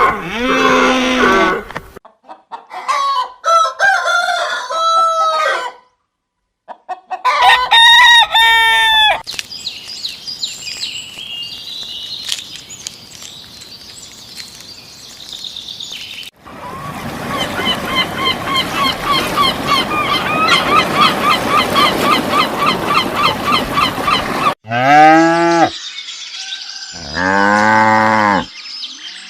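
Farm animal calls cut one after another, chickens clucking and a rooster crowing among them. A long stretch of dense, rapid calling fills the middle, and two loud, drawn-out calls come near the end.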